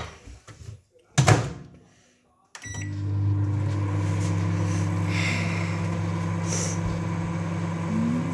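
A sharp thud about a second in, then a few short clicks and a microwave oven starting up, running with a steady low hum.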